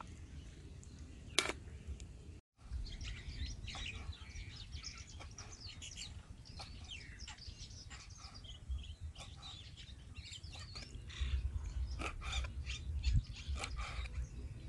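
Small birds chirping on and off, with a cleaver chopping boiled pig intestine on a wooden board: a few sharp knocks near the end.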